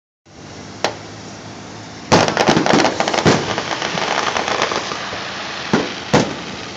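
Aerial fireworks exploding: a sharp bang a little under a second in, a loud bang about two seconds in followed by about a second of rapid crackling, then two more bangs near the end.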